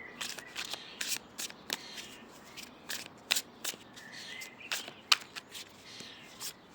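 Tarot cards being shuffled by hand: a run of quick, irregular card slaps and rustles.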